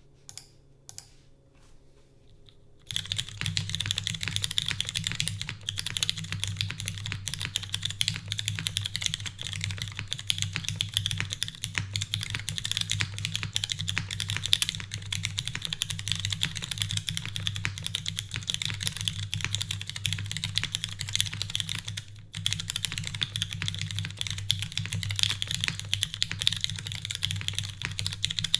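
Fast, continuous typing on a Lin Whale custom mechanical keyboard with lubed and filmed Cherry MX Brown switches in a full aluminium plate with no foam, under GMK keycaps. A few faint key clicks come first, then steady typing starts about three seconds in, with a short break about three-quarters of the way through.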